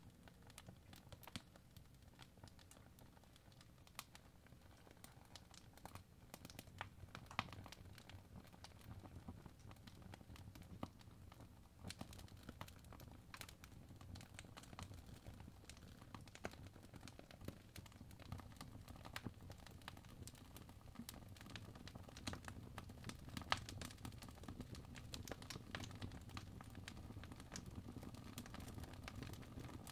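Faint, irregular taps and light scratches of a first-generation Apple Pencil's plastic tip on the glass screen of an iPad Pro as drawing strokes are made.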